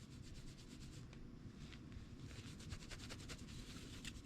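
Faint cloth rubbing over a plastic slot-car body as spray detailer is wiped on, in quick, irregular scratchy strokes.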